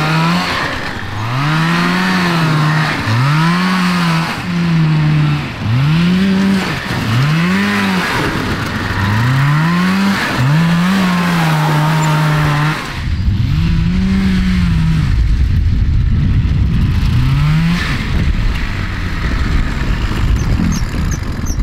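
Kawasaki 440 two-stroke snowmobile engine in a go kart, its revs climbing and dropping over and over, about once a second, then giving way to a steadier, noisier rumble about 13 seconds in. It is running rough with the choke left on the whole time; the driver puts it down to a fuel delivery problem.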